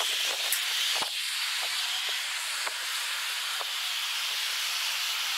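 A steady high-pitched hiss of outdoor background noise, with a few sharp clicks, the strongest about a second in.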